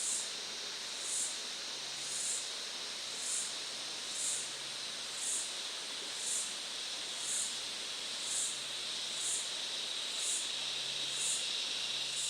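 Rainforest ambience: a steady hiss of background noise under a high, even drone, with a short high chirp repeating about once a second.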